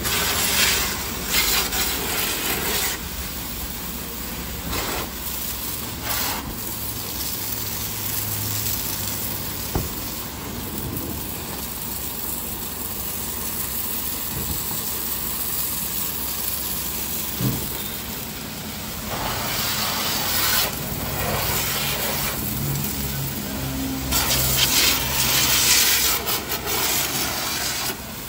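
High-pressure car-wash hose spraying water onto a car: a steady hiss that gets louder in stretches near the start and again from about twenty seconds in, as the jet strikes the bodywork.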